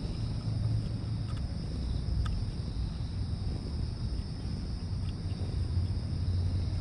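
Domestic cat purring contentedly while being stroked, a low continuous rumble that swells and fades with its breathing. A steady high drone of insects runs underneath.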